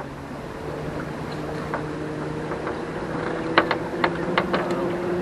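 Boat's outboard motor running steadily at low speed, holding the boat against the river current, its pitch dropping slightly about three and a half seconds in. A few light clicks sound over it.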